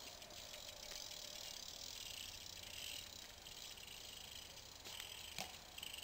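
Faint sound of a BMX bike rolling over stone paving under a steady hiss. About five seconds in, one sharp knock as the wheels hit the stone ledge.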